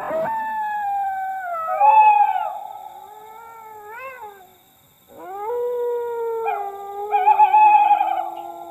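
Several dogs howling together in long, sliding calls at different pitches. The howls start suddenly, fade out about halfway through, then swell up again and are loudest near the end.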